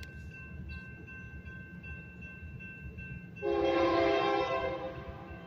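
Union Pacific freight locomotive's air horn sounding one blast of about a second and a half, a chord of several notes, starting about three and a half seconds in, over a steady low rumble.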